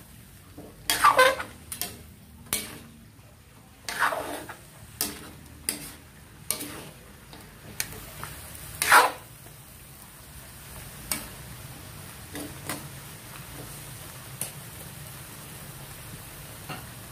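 Metal spatula and ladle scraping and knocking against an aluminium wok as a pot of vegetables and pork is stirred, the strokes thinning out in the second half, with the loudest knock about nine seconds in. A faint steady sizzle of the simmering pan runs underneath.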